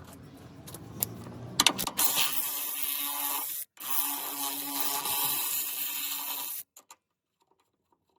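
Cordless power tool running in two bursts, about a second and a half and then nearly three seconds long with a short break between, after a few handling clicks; it stops abruptly near the end.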